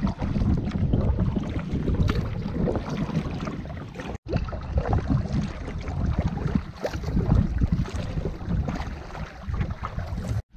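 Wind buffeting the microphone in gusts, with water lapping and slapping against a canoe hull on a choppy lake.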